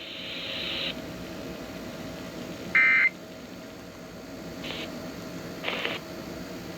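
A short, loud burst of Emergency Alert System SAME digital data tones about three seconds in, with two fainter short bursts near the end, over faint receiver hiss and a steady hum. Coming straight after a flash flood warning's spoken text, the burst is the end-of-message code that closes the alert.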